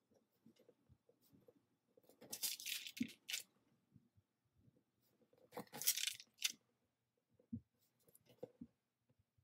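Paper and plastic rustling in two short bursts, about two and six seconds in, with a few faint taps between: a sticker sheet and card being handled while adhesive dot stickers are peeled off and pressed down.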